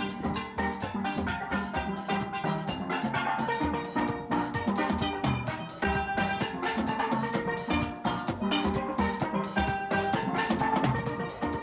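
Caribbean steel drum (steelpan) music with a steady drum beat.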